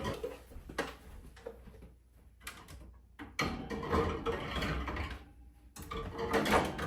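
Pantry storage containers being handled: separate knocks and clicks, then a longer stretch of scraping and rustling about halfway through, and more knocking near the end.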